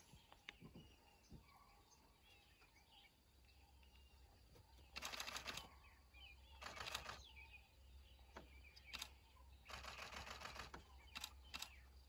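Faint camera shutters firing in rapid bursts: three runs of fast clicking about five, seven and ten seconds in, with a few single clicks between.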